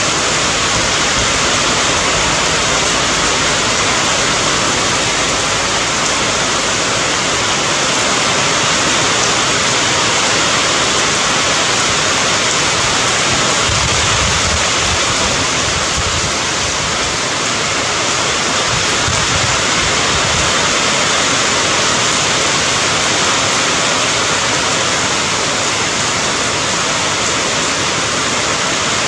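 Steady, unbroken rain, a dense even hiss of falling water.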